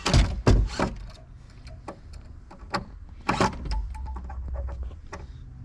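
Sharp knocks from framing work on a wooden wall, two loud ones in the first half-second and another about three and a half seconds in, with lighter clicks between, over a low steady hum.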